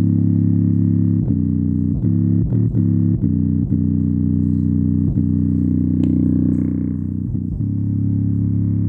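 JBL Charge 4 Bluetooth speaker playing bass-heavy music loudly: deep sustained bass tones with almost no treble, its passive radiator pumping hard. Short sharp pops break in irregularly, the speaker's passive radiator popping under the bass.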